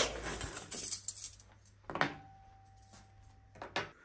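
Metal forks jingling and clinking as they are handled and laid on a table, with one sharp clink about two seconds in that rings on briefly, and another clink near the end.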